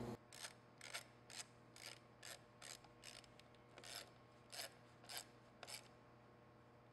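Hand ratchet wrench with a socket being worked on a bolt of a lawn mower engine: about a dozen faint rasps of the pawl clicking on the back-strokes, roughly two a second, stopping near the end.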